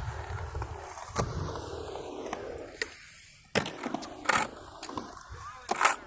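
Skateboard wheels rolling on concrete, dying away, then several sharp clacks of a board striking the ground, the loudest near the end.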